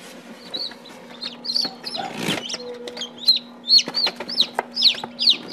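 Newly hatched chicks peeping: a rapid run of high, downward-sliding peeps, about three a second, over a steady low hum. A short rustle about two seconds in.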